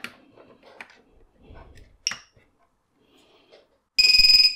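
Faint clicks and handling of a USB cable being plugged in, with one sharper click about two seconds in. About four seconds in, the flight controller's buzzer starts a loud, steady, high-pitched beep as the board powers up over USB.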